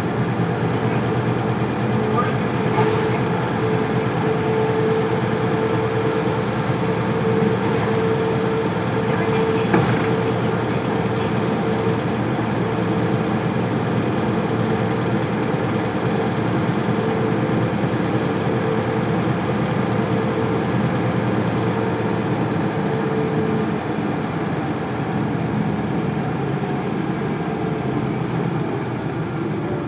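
Isuzu Cubic city bus with its 8PE1 V8 diesel running, heard from inside the bus. A steady whine runs along with the engine and stops about three-quarters of the way through, after which the sound eases off slightly.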